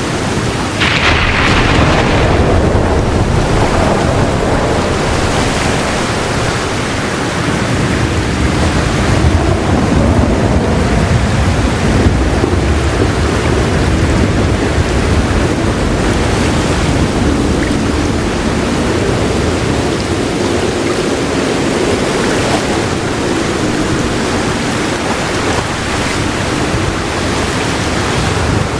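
Heavy rain falling steadily with soft, rolling thunder rumbling low underneath; the rain gets louder and brighter about a second in.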